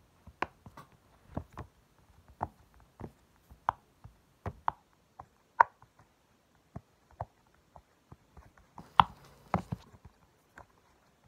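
Silicone bubbles of a green hexagon pop-it fidget toy being pushed through one by one from its quiet side, each giving a short soft pop. The pops come irregularly, about one or two a second, with a louder pair about nine seconds in.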